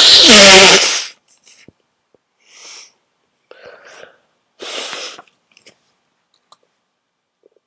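A person's loud, explosive sneeze with a voiced cry falling in pitch, lasting about a second. It is followed by a few short, much quieter breaths.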